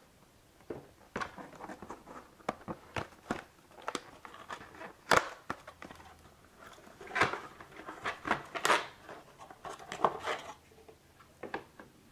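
A cardboard retail box being handled and opened by hand: an irregular run of taps, scrapes and rustles as the box is pulled apart and its inner packaging slid out, with one sharper knock about five seconds in.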